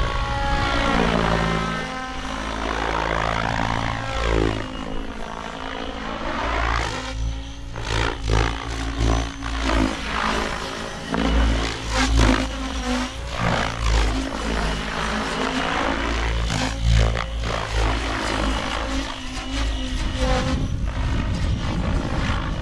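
XLPower Specter 700 V2 electric RC helicopter flying at a headspeed of about 1690 rpm: a steady whine and whir from the main rotor and drive, its tone sweeping up and down as the helicopter swoops past and climbs away. Through the middle it pulses louder with the blade noise of its manoeuvres.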